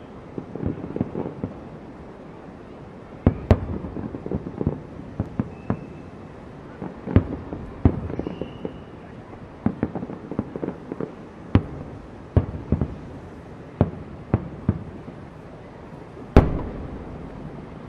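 Aerial fireworks display: shells bursting in an irregular string of booms and sharp cracks, with clusters of crackling between them and a brief whistle or two. The biggest boom comes near the end and rumbles on after it.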